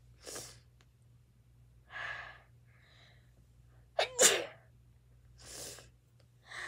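A person sneezing once, loudly and sharply, about four seconds in, with a few softer breaths before it.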